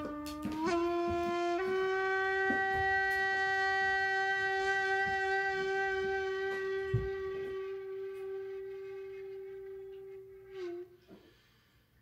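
A small electric appliance's motor running with a steady buzzing hum. It steps up in pitch twice in the first couple of seconds as it spins up, holds, then dips and cuts off about ten and a half seconds in. A few soft knocks are heard under it.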